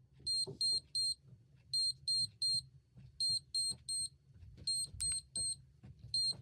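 ZKH mini handheld carbon monoxide detector sounding its alarm: high-pitched beeps in groups of three, a group about every one and a half seconds. Faint clicks fall between the beeps, with a sharper one about five seconds in.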